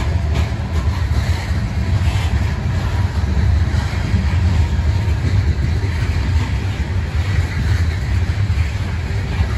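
Open coal hopper cars of a freight train rolling past: a steady low rumble of steel wheels on the rails and the rattling of the car bodies.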